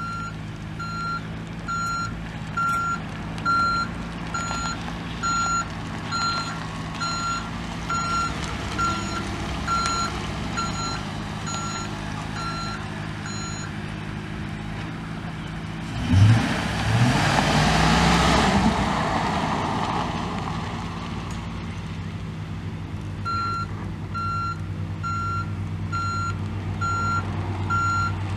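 A pickup's V8 engine idles steadily under a backup alarm beeping about every three-quarters of a second. About halfway through the beeping stops and a loud rush with a rising engine note swells and fades over a few seconds. The beeping starts again near the end.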